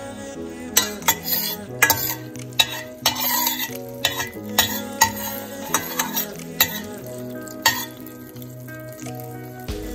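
A metal spoon stirring whole spices sizzling in butter and oil in a stainless steel pan. About a dozen sharp clinks of the spoon against the pan are scattered through the stirring.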